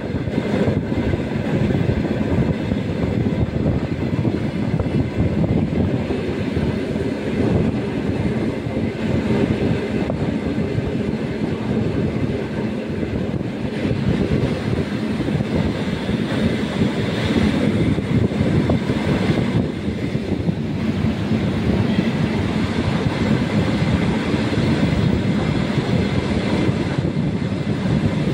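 ER2K electric multiple unit running at speed, heard from on board: steady running noise of wheels on rail, alongside another electric train on the next track.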